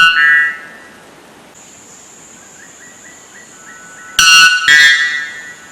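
A bird calling in strange, flat, horn-like notes: one ending just at the start, then two loud notes about four seconds in, with soft quick chirps between them. A steady high insect trill runs behind from about a second and a half in.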